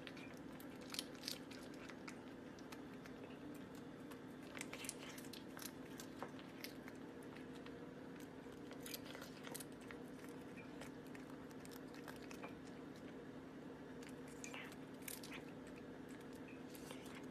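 A hairless Sphynx cat biting and chewing at something, making quiet, irregular small crunches and clicks over a steady low hum.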